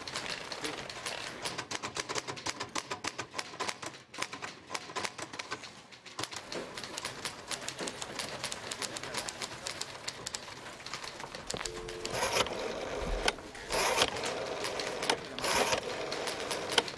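A rotary desk telephone being dialed: a short burst of dial tone, then the dial turned and whirring back three times near the end. Before that, a long stretch of fast light clicking.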